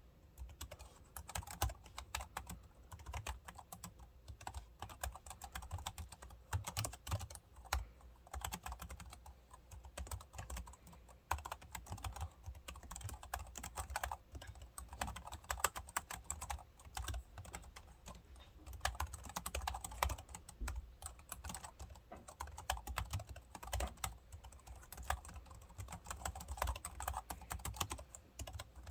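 Continuous typing on a B.Friend RB730 scissor-switch keyboard: quick, irregular key clicks with a soft low thud as keys bottom out.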